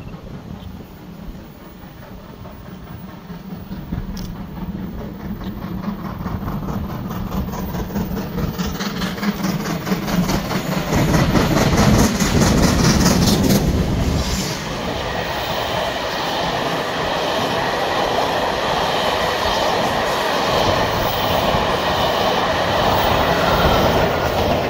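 LNER B1 4-6-0 steam locomotive working uphill. Its exhaust beats grow louder as it approaches and are loudest as it passes close by about halfway through. Its coaches then roll past, wheels clickety-clacking over the rail joints.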